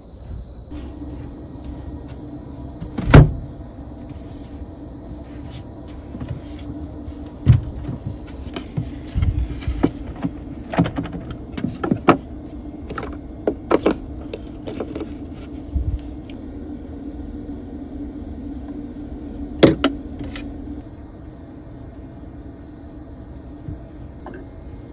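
Handling noises in a small camper interior: a run of knocks, clicks and clatters as bedding is thrown down and cosmetic bottles and jars are taken from a drawer, the loudest a thump about three seconds in. A steady low hum sits under them and stops about twenty seconds in.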